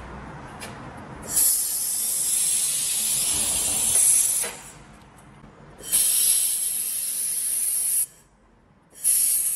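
A 1500 W handheld wire-fed laser welder firing in three bursts, each a loud, high hiss of the weld and its gas flow lasting two to three seconds. The last burst starts near the end and is still going.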